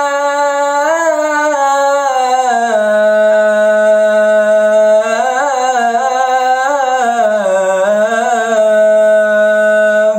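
A young man's solo voice chanting the adhan, drawing out "hayya 'ala-s-salah" in one long unbroken melismatic phrase. The held notes drop to a lower pitch a few seconds in, with wavering ornamental turns in the middle and later part, and the voice stops suddenly at the end of the breath.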